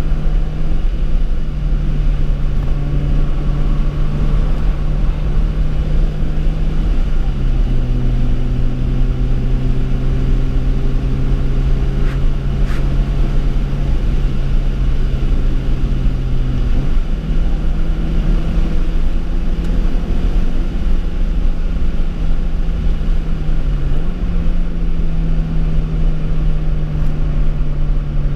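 BMW E30 318i's four-cylinder engine with a sports exhaust running steadily at cruise, heard from inside the cabin over a constant low road rumble. The engine note drops about seven seconds in and rises again around seventeen seconds in.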